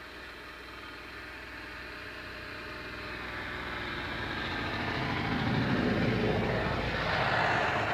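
A snowmobile engine approaching across the river ice, growing steadily louder and loudest near the end as it passes close by.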